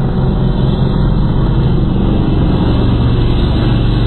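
Motorcycle engines running hard as bikes race down a drag strip, a loud, fairly steady engine note.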